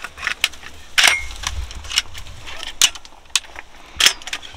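Irregular sharp clicks, clinks and rustling of hunters handling gear in a cramped duck blind, over a low rumble. The loudest clicks come about a second in and again near three and four seconds.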